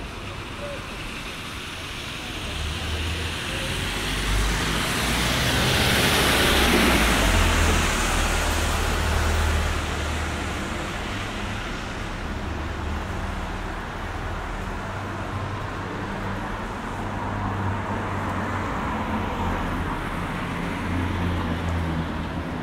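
Road traffic on a wet street: a vehicle passes with a swelling hiss of tyres on wet tarmac, loudest about six seconds in, then fading, over a steady low engine hum.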